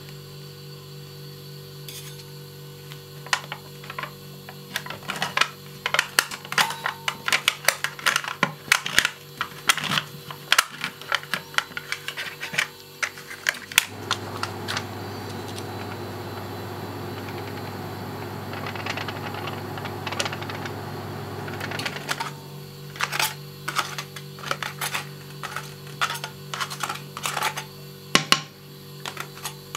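Metal ice-cream scrapers tapping and scraping on a plastic dessert cup in quick, sharp, uneven clicks, over a steady low hum. For several seconds in the middle the taps stop and a softer, even hiss takes their place, then the tapping and scraping start again.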